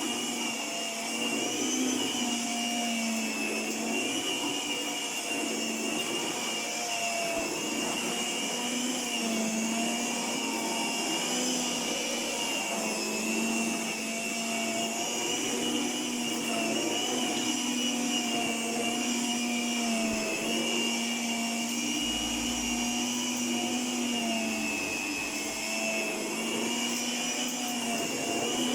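1978 Princess electric carpet sweeper's 100-watt motor and brush bar running, a loud, steady whine whose pitch wavers slightly.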